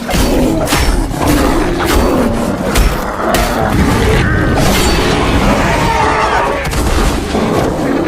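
Loud sound effects: a quick, irregular series of sharp crashes and thuds over a continuous heavy rumble.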